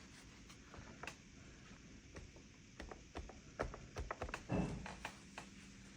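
Faint, irregular taps and clicks of a paintbrush dabbing watercolour on sketchbook paper and palette, more of them in the second half, with one brief soft low sound about four and a half seconds in.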